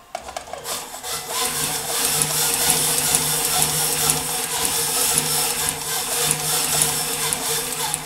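Claes 8346/20 open-arm industrial sewing machine running and stitching a zipper into a leather boot. It starts just after the beginning and runs at an even speed.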